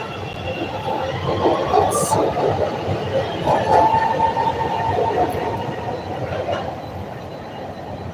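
CTA 5000-series electric rapid-transit train pulling out of the station and running past: steady wheel-on-rail rumble, a short hiss about two seconds in, and a high wheel squeal in the middle. The noise fades over the last few seconds as the last car leaves.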